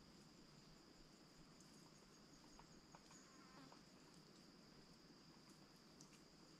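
Faint, steady high-pitched insect chirring in woodland, with a few soft clicks about halfway through and near the end.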